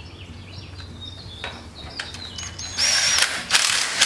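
Cordless drill/driver running in two short bursts, starting about three seconds in, driving a bolt home.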